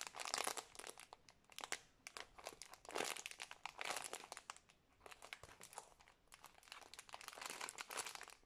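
Clear plastic bag crinkling softly in irregular bursts as a squishy toy sealed inside it is squeezed and turned in the hands.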